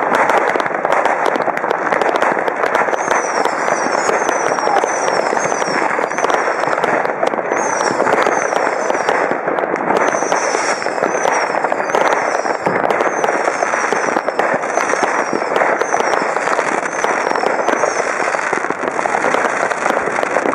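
Many fireworks and firecrackers going off across a city at once: a dense, continuous crackle of distant bangs and pops. From about three seconds in, short high whistles falling in pitch repeat again and again.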